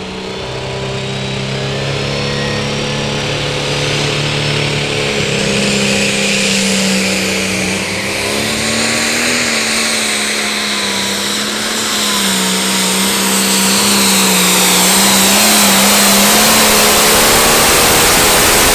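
Turbocharged diesel engine of a Light Pro Stock pulling tractor running flat out under load as it drags the weight-transfer sled. A high whine rises over the first several seconds, and the engine grows louder toward the end.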